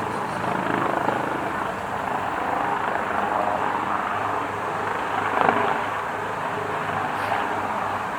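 A helicopter flying overhead: a steady drone of rotor and engine that goes on throughout.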